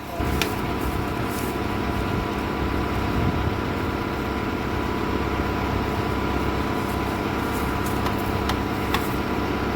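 Tractor-mounted borewell drilling rig running steadily with its engine at a constant pitch, with a few short knocks about half a second in and near the end.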